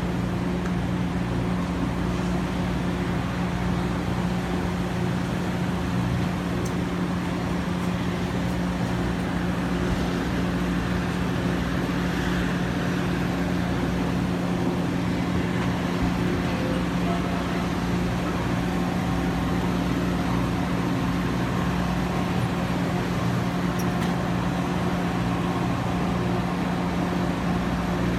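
Metra commuter train on the BNSF line running, a steady low drone: a constant hum over a rumble that does not change in pitch or loudness.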